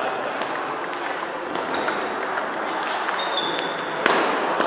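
Table tennis balls clicking off bats and tables from several tables at once, irregular and overlapping, over the steady murmur of a busy sports hall. A single louder knock comes about four seconds in.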